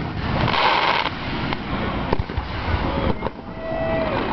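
Fireworks display: a string of sharp bangs from bursting shells, with a burst of crackling hiss about half a second in and a whistling tone that falls in pitch near the end.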